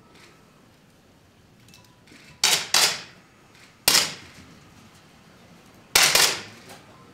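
10 m match air pistols firing, one shooter after another: four sharp cracks at uneven intervals, two in quick succession about two and a half seconds in, another about a second later, and a fourth about six seconds in.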